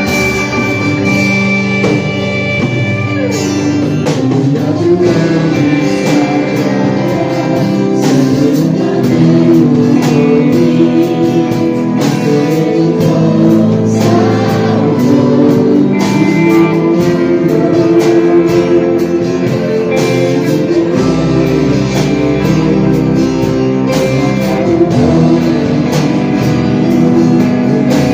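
Gospel worship music: a band with guitar and a steady drum beat, with singing.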